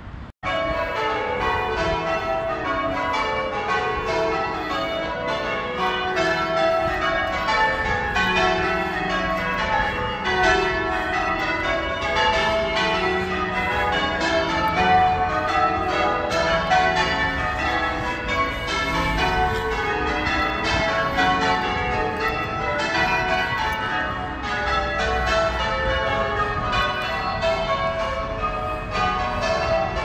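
Church tower bells change ringing, cutting in abruptly about half a second in. The bells strike one after another in quick runs from the highest to the lowest, over and over without a break.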